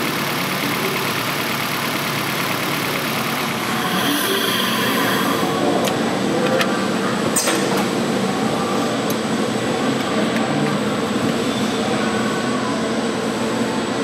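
2006 Nissan Altima's four-cylinder engine idling steadily with cylinder four dead, a misfire on one cylinder. A few light clicks come midway.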